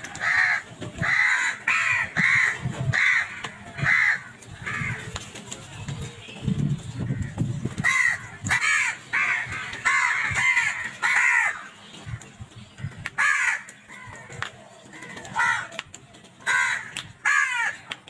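A flock of house crows cawing, many harsh caws in quick runs of about two a second, with short lulls between the runs.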